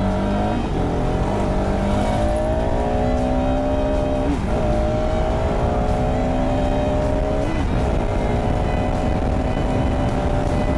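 Bajaj Pulsar RS 200 single-cylinder motorcycle engine running under way, its pitch climbing steadily, with brief dips about four and a half and seven and a half seconds in, as at gear changes. A steady low rumble of wind and road noise runs under it.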